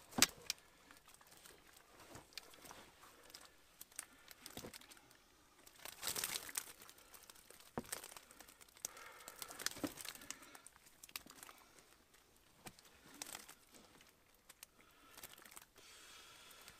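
Fishing keepnet mesh and a black fabric bag rustling and crinkling as they are handled, in irregular bursts with scattered small clicks. A sharp knock just after the start is the loudest sound.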